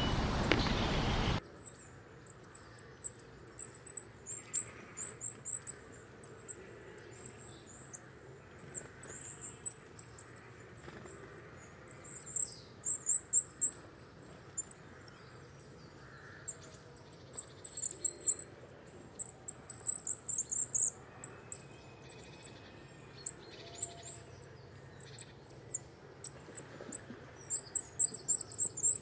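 Coal tit calling: thin, very high-pitched short notes in quick series, in bursts every second or two. A loud hiss in the first second or so cuts off suddenly.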